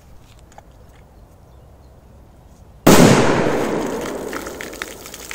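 A large firecracker exploding under the water of a shallow bog pond: one sudden heavy bang about three seconds in, followed by the noise of the thrown-up water and spray, fading over about two seconds.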